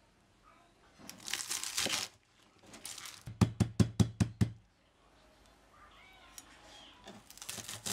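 Cleaver chopping through a bunch of spring onions onto a wooden cutting board: about seven quick knocks in about a second. Rustling of the stalks being handled comes before it.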